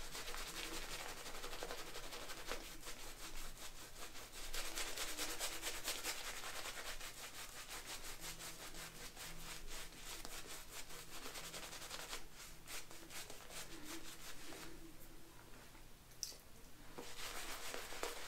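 Boar-bristle shaving brush (Semogue 610) swirling quickly through tallow shaving soap lather, a rapid wet brushing hiss of bristles, with a short lull near the end.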